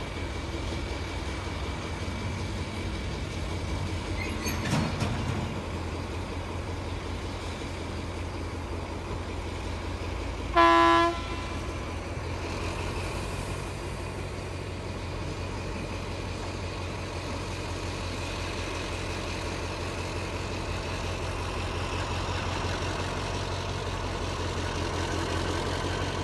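Diesel locomotive engine running with a steady low hum, with one short horn blast about ten seconds in, the loudest sound. The engine gets a little louder near the end.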